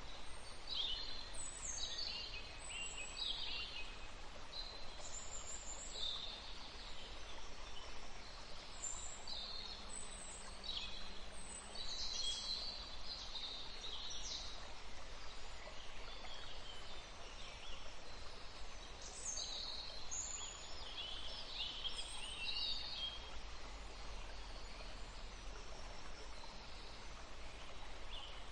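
Forest ambience: small birds chirping in short, repeated calls over a steady background hiss.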